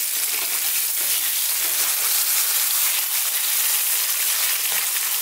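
Hot oil sizzling steadily around pieces of sea bass frying in a pan.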